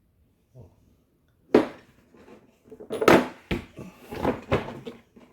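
A tire-change tool kit case being opened: a sharp click about a second and a half in, then about two seconds of clattering knocks as the case clips and lid are worked and the tools inside shift.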